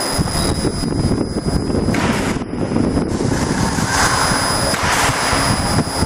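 CO2 laser marking machine at work engraving a wood sheet: a loud, rumbling rush of air noise that starts abruptly, over a steady high whine.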